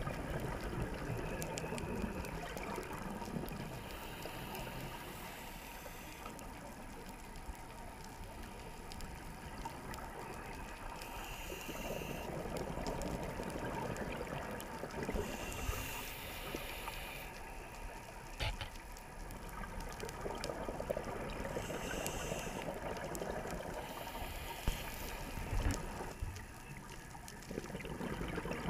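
Underwater recording of a scuba diver breathing through a regulator: gurgling bursts of exhaust bubbles every few seconds over a steady low water rumble.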